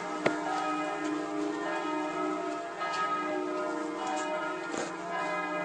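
Church bells ringing, many steady bell tones overlapping, with a single sharp knock about a quarter of a second in.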